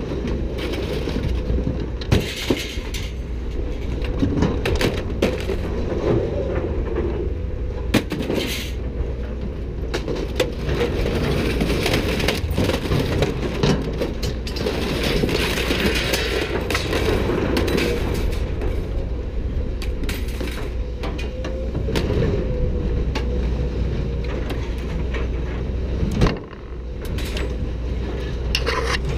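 Scrap metal clanking and banging, many separate knocks, as pieces are thrown out of a loaded pickup bed onto a scrap pile, over the steady low rumble of heavy machinery running.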